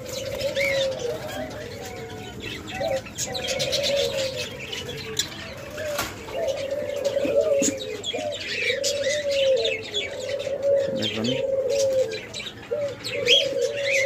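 Diamond doves cooing repeatedly, low soft coos following and overlapping one another, with higher chirps from small birds and a few sharp clicks.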